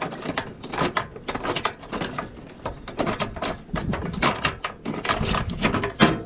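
Rapid, irregular metallic clicking and clanking of hand tools and engine parts being worked by hand.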